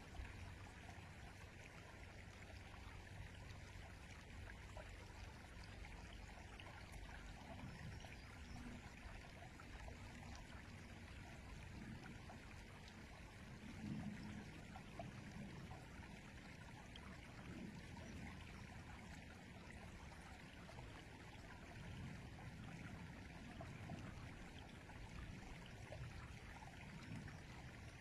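Flowing river: a faint, steady rush of water.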